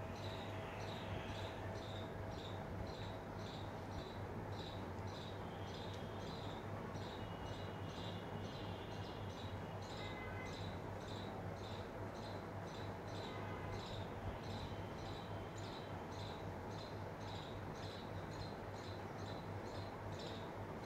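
An insect chirping in a steady rhythm, about three short chirps a second, over a steady low hum and a faint even hiss.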